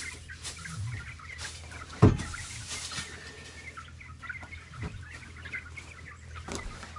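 Chickens clucking and chirping throughout, with one sharp, loud knock about two seconds in and a few fainter clicks.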